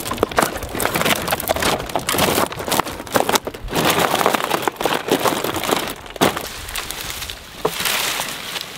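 Dry sticks and twigs crackling and snapping underfoot as they are stomped down into a raised garden bed over cardboard, a dense run of rapid cracks that thins out toward the end.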